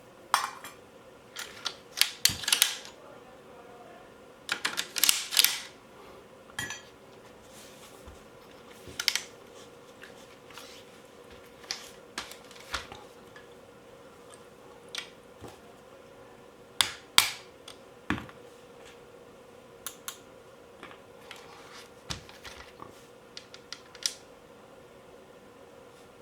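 Irregular clicks, knocks and short scrapes of a Cyma CM040 airsoft AK's parts being handled and taken apart, some in quick clusters, over a faint steady hum.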